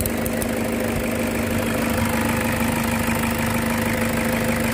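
Toyota Fortuner engine idling steadily, with an even hum.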